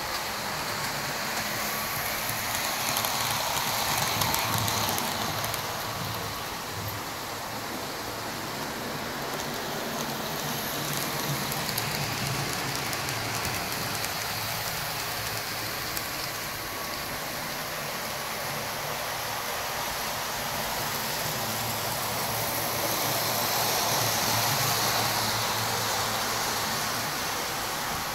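HO scale model trains running on the layout's track: a steady rolling hiss and clatter of small wheels on rail with electric motor hum, no added locomotive sound. It swells twice, about four seconds in and again near the end, as a train passes close.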